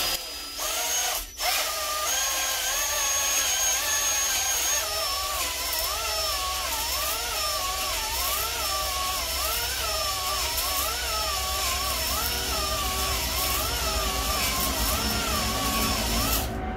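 Electric drill spinning a ball-type flex hone up and down inside a cast-iron cylinder bore of a Mazda MX-5 Miata engine block, honing a crosshatch for new piston rings. The motor's whine rises and falls in pitch as the trigger speed is varied. It cuts out briefly about a second in and stops near the end.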